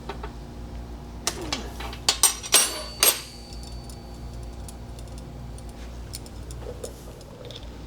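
Small metal objects being handled and set down: a quick run of sharp metallic clinks and clatter between about one and three seconds in, the last one ringing briefly, then a few lighter taps. A steady low hum runs underneath.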